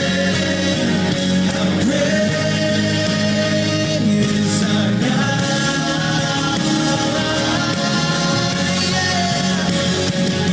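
A worship song with a singer over band accompaniment, playing steadily for the church congregation to sing along.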